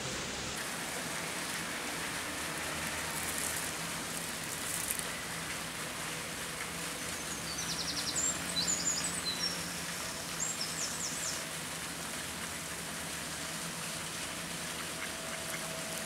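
A steady rushing noise, with a small bird's short, rapid high trills coming in a few times around the middle.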